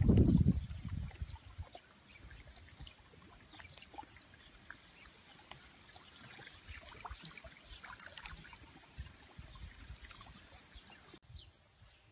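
Small waves lapping faintly against a rocky shore, with light splashes and ticks. A low rumble dies away in the first second or two.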